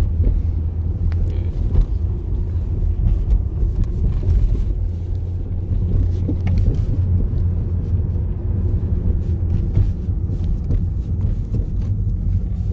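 Steady low rumble of the engine and road noise heard inside a Hyundai car's cabin while it is being driven.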